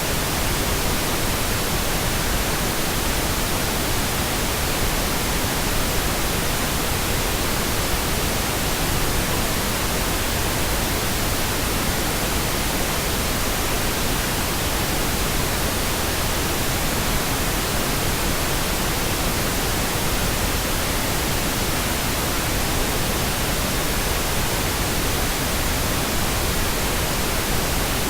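Steady, unbroken pink noise, an even hiss spread across the whole range of hearing and played as a tinnitus masker.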